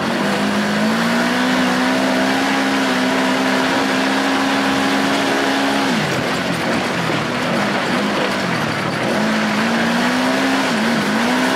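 Off-road side-by-side buggy's engine, heard from inside the cab, held at high, steady revs for several seconds. About halfway through the revs drop and waver as the throttle comes off, then climb again near the end with a brief dip. A constant rush of wind and dirt-track noise runs underneath.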